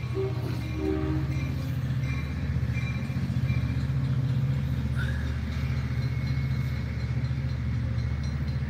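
Double-deck diesel commuter train going by, its locomotive's engine a steady low rumble.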